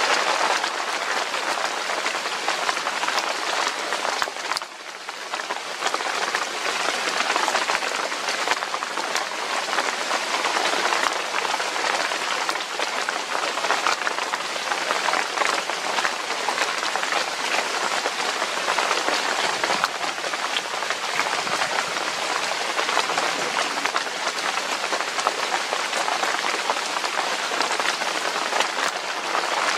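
Steady rain falling, a dense hiss of drops with fine scattered drop ticks through it. It eases briefly about four to five seconds in, then picks up again.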